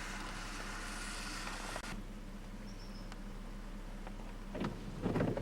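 Steady road and engine noise heard inside a moving car, with two short louder swells near the end.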